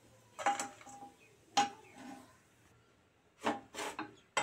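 Steel spatula scraping and knocking against a kadhai and a steel plate as roasted dry fruit is scooped out: about four short clinks and scrapes, each ringing briefly.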